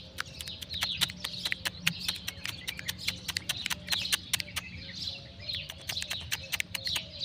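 Small birds chirping and twittering in the trees, a busy, continuous chorus with many sharp, clicky chirps coming several times a second at irregular intervals.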